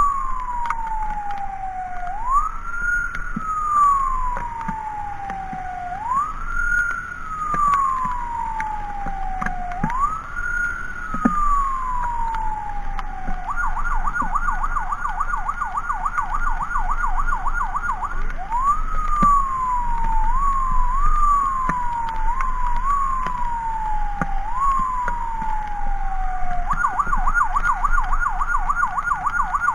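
Electronic emergency siren on an ambulance escort. It runs a slow wail, each sweep rising quickly and falling slowly, about every four seconds. It switches to a fast yelp about halfway through, goes back to wail with a few short chirps, then yelps again near the end, over a steady hiss of wet road and rain.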